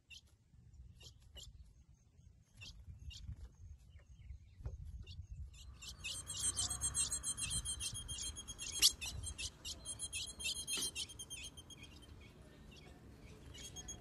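Female ultramarine grosbeak (azulão) calling. First come scattered short, high chips; about halfway in they give way to a rapid, dense high-pitched twittering, the call with which she solicits mating from the male.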